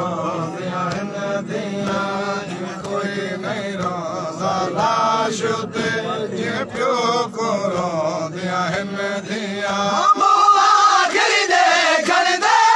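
A group of men chanting a noha (Shia mourning lament) in unison behind a reciter on a microphone, over a steady low drone and sharp beats about every two-thirds of a second. About ten seconds in, the drone drops out and the chanting turns louder and higher.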